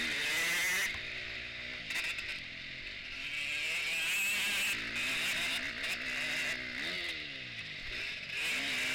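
KTM 250 four-stroke motocross bike engine revving hard and easing off through the corners, its pitch climbing and dropping again and again, with a quick rise and fall about seven seconds in. Heard close up from the bike itself, with a rushing hiss over it.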